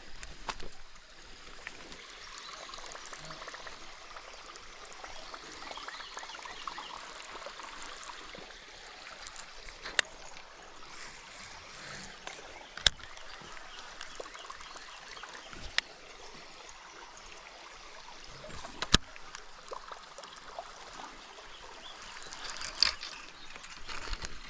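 Water trickling steadily, with a few sharp clicks or knocks spaced about three seconds apart.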